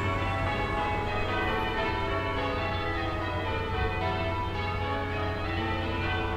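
Distant church bells ringing in continuous succession, many overlapping bell tones sounding over one another. A steady low town rumble lies underneath.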